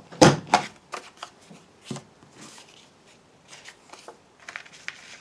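Stampin' Up Corner Trio Punch snapping down twice through patterned card stock, followed by lighter clicks and paper rustling as the square is turned and fed back into the punch.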